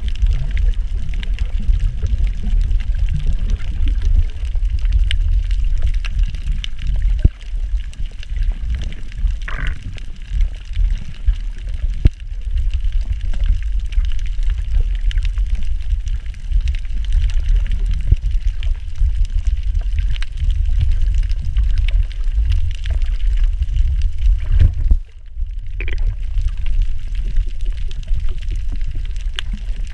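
Underwater sound of water moving around a submerged camera: a steady low rumbling wash with scattered faint clicks, dipping briefly about 25 seconds in.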